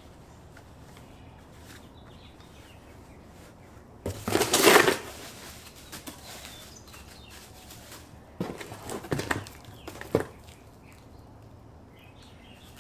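Rustling and handling noises from packaging and parts: one loud crinkling rustle about four seconds in, then a few shorter rustles and knocks around eight to ten seconds in.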